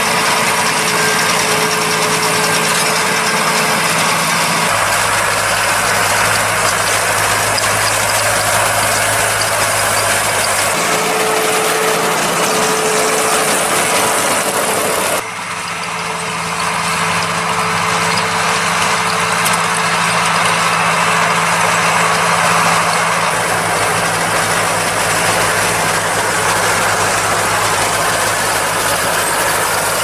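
Deutz-Fahr tractor diesel engines running steadily with hay machinery working, first a round baler-wrapper and then a rotary rake. The sound changes abruptly about halfway through, and a steady whine comes in near the start and again shortly before the change.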